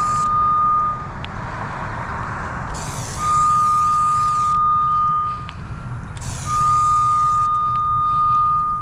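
Cable locator receiver's tone: a steady high beep held for a second or two at a time, three times, over loud bursts of hiss and a constant low rumble.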